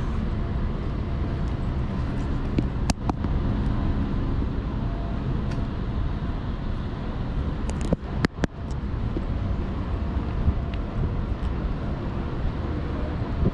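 Downtown street ambience: a steady rumble of road traffic, heaviest in the low end, with a few sharp clicks about three seconds in and again around eight seconds.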